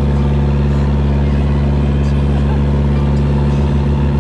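Fishing boat's engine running steadily under way, a loud, even low drone.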